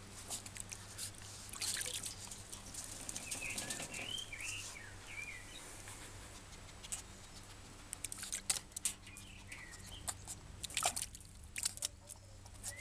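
Water splashing and dripping in a shallow plastic crate as a small papillon dog wades and dips its head into it, with sharp splashes scattered through. Several short bird chirps come about four seconds in.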